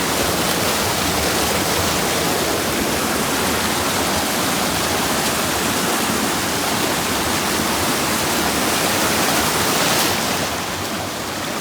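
River water rushing, a steady full noise that thins slightly near the end.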